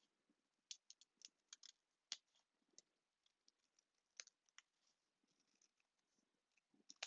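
Faint, irregular clicks and snips of cardstock being trimmed, busiest in the first couple of seconds and sparser after.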